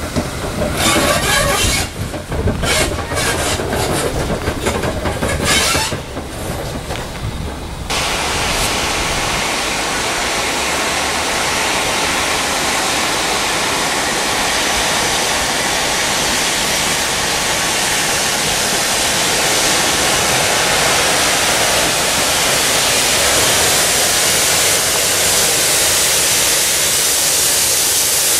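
An Austerity 0-6-0 saddle tank steam locomotive running past and away, with irregular clicks and clatter of its wheels over rail joints over a low rumble for the first eight seconds or so. After that the sound turns abruptly into a steady, loud hiss that grows slightly louder toward the end.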